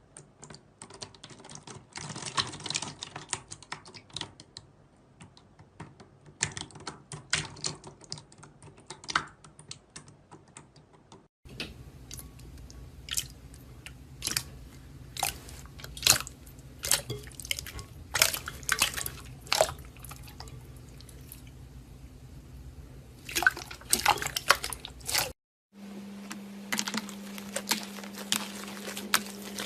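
Slime being squeezed and poked by hand: a dense run of wet clicks, crackles and pops. The sound changes abruptly twice, at about 11 seconds and 25 seconds, as new clips begin, and the last part carries a steady low hum under the clicking.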